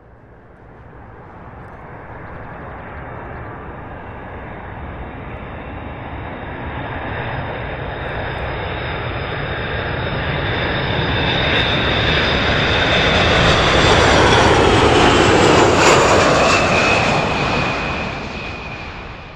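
Jet airliner flying past: engine noise with a high whine that builds steadily, peaks about three quarters of the way through, then fades. The whine drops in pitch as it passes.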